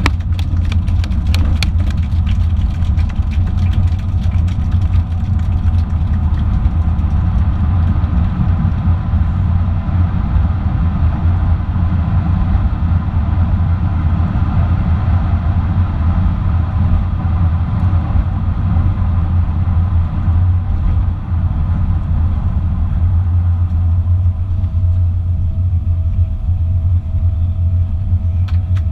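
Steady drone of a Boeing 777-300's engines and airflow heard inside the passenger cabin, with a deep low hum and a few rattling clicks in the first seconds. A faint steady whine joins near the end.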